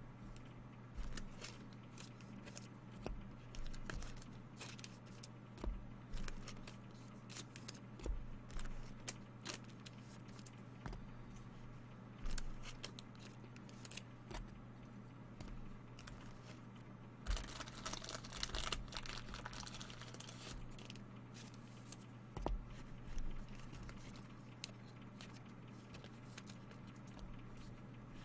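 Trading card packaging being handled and opened: scattered clicks and taps with wrapper tearing and crinkling, busiest in a stretch of rustling about two-thirds of the way through, over a steady low hum.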